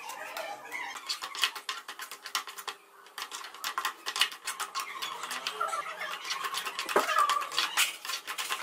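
Metal spoon scraping and clicking against a metal frying pan as semolina is stirred while it roasts in ghee over medium heat. The scrapes and taps come quickly and irregularly, with a brief lull about three seconds in.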